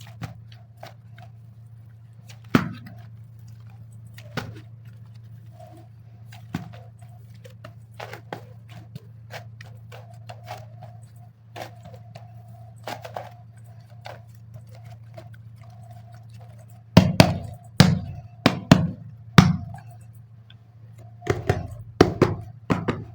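Soft modelling clay being handled: scattered light clicks and taps over a steady low hum, then two runs of loud thuds, the first about two-thirds of the way in and the second near the end.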